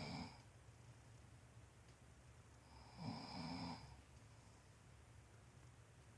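A person snoring faintly: the tail of one snore right at the start, then one full snore about three seconds in lasting about a second.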